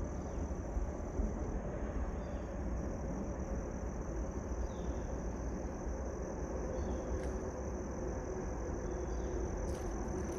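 Insects droning in one steady high-pitched tone over a low, even rumble, with a couple of faint clicks near the end.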